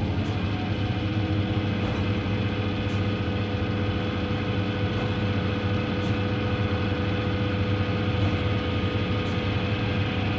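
Steady factory machinery drone: a low hum under a constant mid-pitched tone, with faint short clicks every second or two.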